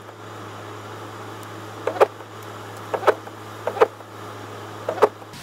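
Steady low hum inside a car's cabin, with a pair of quick clicks about once a second, four times.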